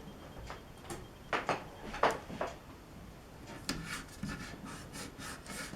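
Scattered rubbing and scraping strokes with a few light knocks: parts of an opened LCD TV being handled and fitted during reassembly after a main board replacement.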